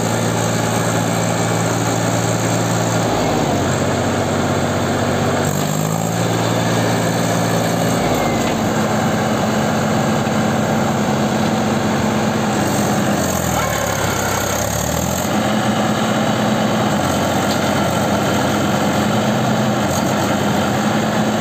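Mahindra 265 DI tractor's three-cylinder diesel engine running hard as it tries to haul a loaded trolley out of deep mud. Its pitch rises and falls several times as the revs change.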